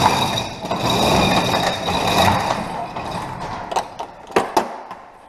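Overhead sectional shop door being raised, its rollers rattling along the metal tracks for about three seconds before the noise fades, followed by a few sharp knocks.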